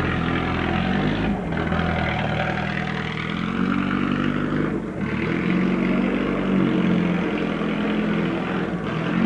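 Hillclimb racing car accelerating hard, its engine pitch climbing through the gears with a short break at each upshift, three times.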